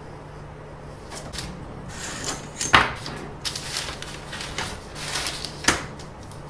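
Handling noises of objects being moved close by: rustling and scraping, with a sharp knock about three seconds in and another near the end.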